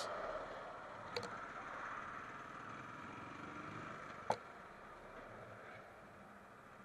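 Faint road noise from a Royal Enfield motorcycle crossing a dual carriageway with lorries passing, slowly fading. Two sharp clicks, about a second in and just past four seconds.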